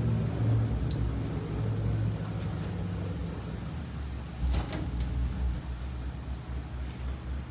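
A few short clicks of a 10 mm socket being worked on the upper strut cover bolts, the clearest about four and a half seconds in, over a steady low hum.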